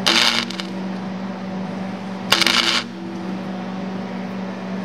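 Electric welder arcing in two short crackling bursts, about half a second each, at the start and about two seconds later. It is spot-welding a bolt onto a broken seat-bolt stub so the stub can be turned out. A steady low hum runs underneath.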